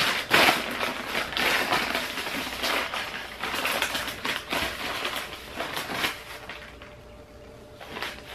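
Plastic packaging crinkling and rustling as it is handled, busiest for the first six seconds, then dying down with one last rustle near the end.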